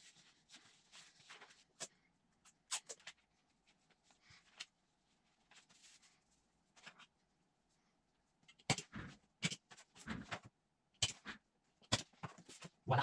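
Scattered rustling and handling noises of paper sheets at a desk, sparse at first, with a cluster of louder rustles and knocks in the second half.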